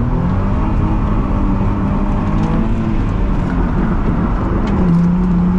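Car engine under power through a wet-track drift, revs held fairly steady, sagging a little near the end and then climbing again, over a steady rushing noise.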